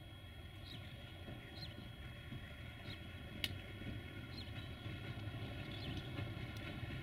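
Sulzer diesel engine of a CFR-class 060-DA1 (LDE2100) diesel-electric locomotive running as the locomotive rolls slowly closer, a low rumble with a steady whine that grows gradually louder. Small birds chirp now and then, and there is one sharp click about halfway through.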